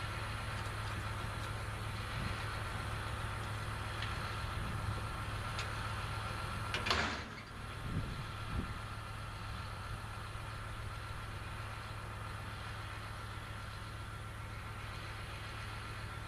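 An engine running steadily at a constant speed, with a brief rush of noise about seven seconds in and two soft thumps just after.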